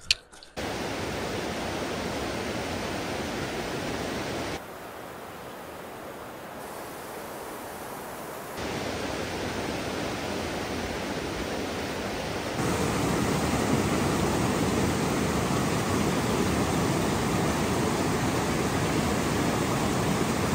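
Steady rush of flowing water, an even loud hiss and roar, its level jumping abruptly up or down a few times.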